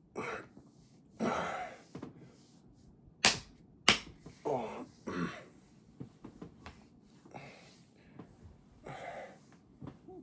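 Quiet body sounds from a man between soda belches: soft breaths and small throat noises, with two sharp smacks about half a second apart near the middle, followed by two short sounds that slide in pitch.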